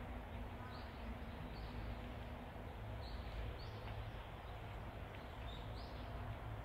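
Outdoor wind rumbling on the microphone, with faint high bird chirps repeating about once a second.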